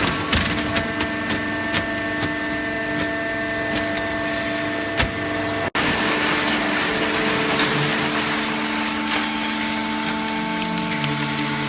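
Hydraulic cardboard baler running: the steady hum of its motor and hydraulic pump, with scattered sharp clicks and cracks. The sound breaks off for an instant about halfway through, and the low hum changes pitch near the end.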